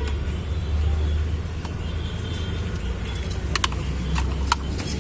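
Volkswagen Polo 1.2 MPI three-cylinder petrol engine idling with a steady low hum, the engine diagnosed with a misfire on cylinder two. A few sharp clicks come about three and a half to four and a half seconds in.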